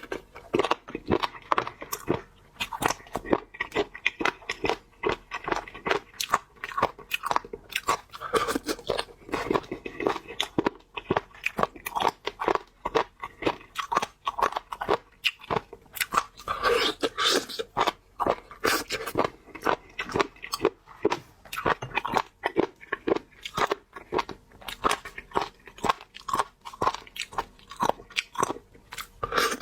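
A person chewing and biting into seafood close to the microphone, a dense, irregular run of crisp crunches and mouth clicks.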